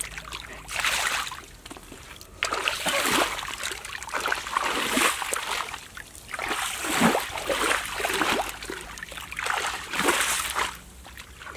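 Bare feet wading through shallow muddy water, with a splash and slosh at each step.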